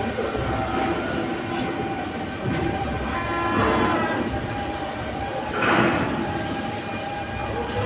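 Hydraulic CNC press brake running: a steady mechanical hum with several whining tones, swelling louder twice, about three and a half and six seconds in, with a brief high whistle near the end.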